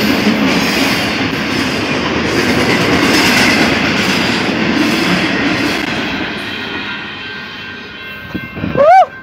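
Double-stack container freight train rolling past on jointed track, wheels clattering over the rails, the rumble fading away as the last cars go by about two-thirds of the way through. A loud, high-pitched voice breaks in near the end.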